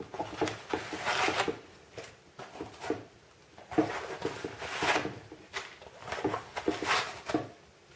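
Pre-cut foam blocks being pulled out of a camera carrying case's foam insert: a series of irregular rubbing and scraping rustles of foam against foam.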